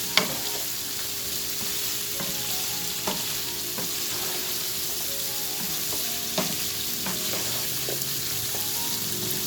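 Chicken and vegetables sizzling in a pan while being stirred, with irregular knocks of the utensil against the pan, the loudest just after the start.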